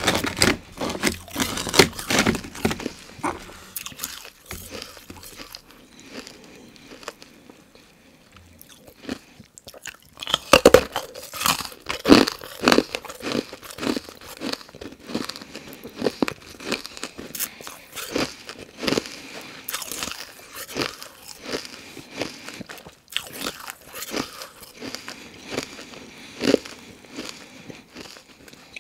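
Carbonated ice being bitten and chewed: loud, sharp crunches in quick runs. They thin out for a few seconds and come thick again from about ten seconds in.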